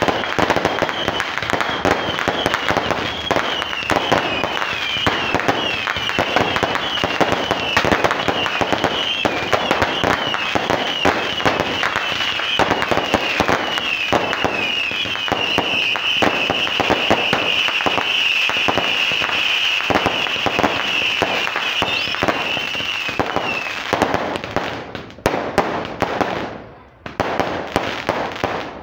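Fireworks going off close by: rapid pops, bangs and crackling, with a high warbling whistle above them for most of the time. Near the end the firing thins to a few separate bangs.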